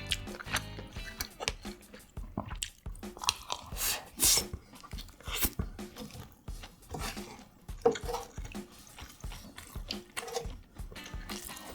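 Close-miked eating: crunchy, juicy bites and chewing in irregular bursts.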